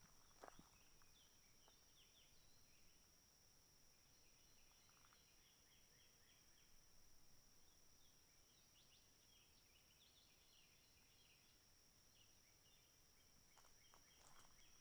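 Very faint natural ambience: repeated clusters of short, high chirping calls over a steady high-pitched whine.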